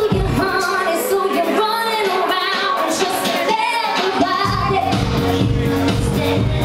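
A woman singing live into a microphone over pop backing music. The bass and beat drop out about half a second in, leaving the voice over lighter accompaniment, and come back in about four and a half seconds in.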